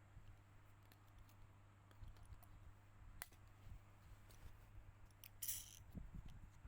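Near silence with faint scattered clicks of small parts and tools being handled. One sharper click comes about three seconds in and a brief hiss about five and a half seconds in, over a low steady hum.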